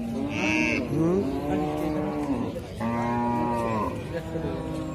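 Cattle mooing: two long, drawn-out moos, the first about two seconds long and the second a shorter one about halfway through. A brief high-pitched sound overlaps the start of the first moo.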